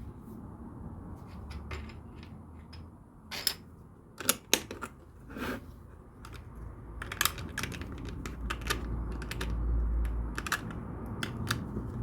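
Plastic LEGO pieces clicking and tapping as they are handled and pressed into place, an irregular run of sharp clicks, the loudest a pair about four seconds in.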